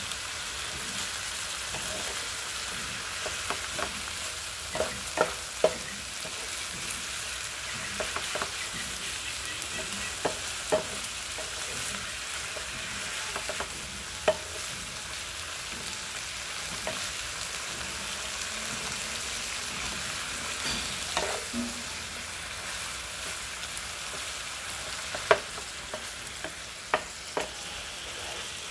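Minced pork and green vegetables sizzling steadily in a black enamel pan while a wooden spatula stirs them, knocking and scraping against the pan now and then, with a few sharper knocks near the end.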